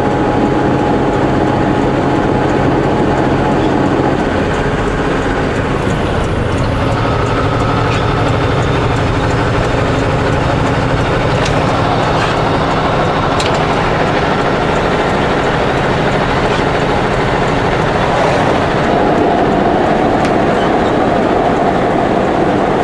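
Semi truck's engine and tyre noise heard from inside the cab, running steadily; the engine note changes about four seconds in.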